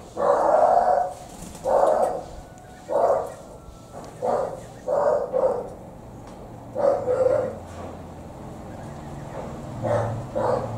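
Small captive wild ducks (két) quacking: about nine loud, short, harsh calls in irregular bursts, the first the longest, with a pause of a couple of seconds before the last two.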